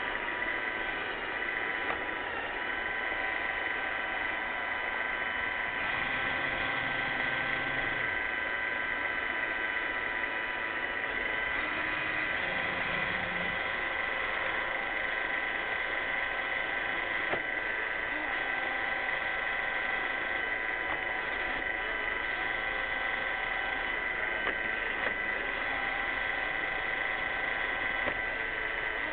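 iRobot Roomba 600-series robot vacuum running, its motors and brushes making a steady whine.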